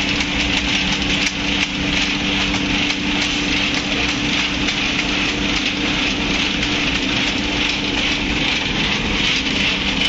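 Steady factory machinery noise: a continuous hiss with a low, even hum underneath.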